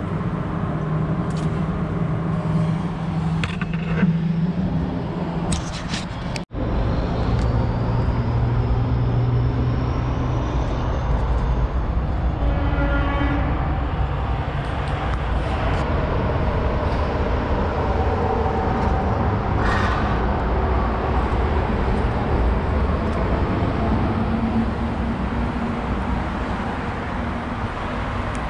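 Steady rumble of road traffic, with a few light knocks.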